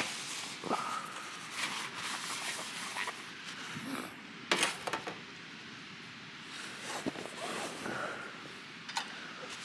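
Light clinks and knocks of tableware being handled, some with a short ring, with a sharp click about four and a half seconds in and another near the end.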